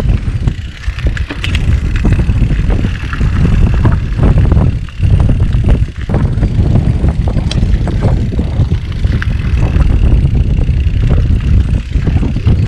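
Wind rushing over a helmet-mounted camera's microphone while mountain biking, with the bike rattling and knocking over rough, stony ground.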